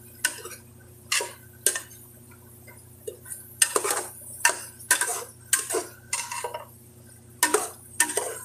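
Metal spoon knocking and scraping against the inside of an aluminium pot while chicken pieces are stirred. The sharp clinks come irregularly, about one or two a second, over a low steady hum.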